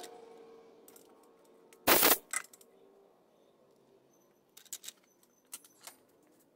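Small brass parts handled by hand: one sharp metal clink about two seconds in, then a few faint light clicks later on, as a brass shaft is slipped into a broached square hole in a brass dial and drawn out again.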